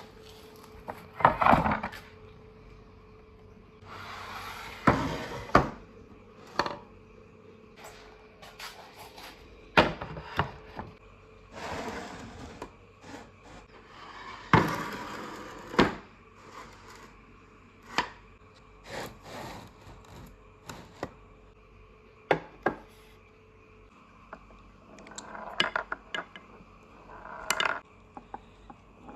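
Marbles rolling and clattering through a marble run of PVC pipe and plastic rain gutters. Irregular clicks and knocks as they hit the plastic and each other, with several longer rolling rushes a second or two long.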